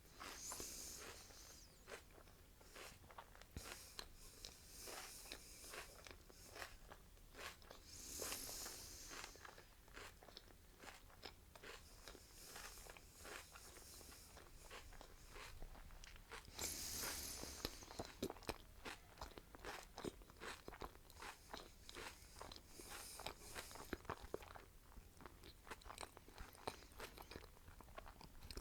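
Faint, close-miked chewing of food: a dense run of small sharp clicks from the mouth, with a few short hissy sounds about half a second in, around eight seconds in and around seventeen seconds in.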